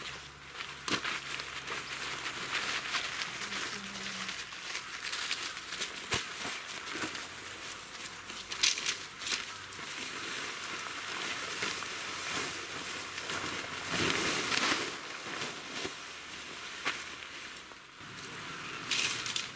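Coleman Visor Dome 270 tent fabric rustling and crinkling as it is pulled from its carry bag and spread out by hand, with a few louder swishes.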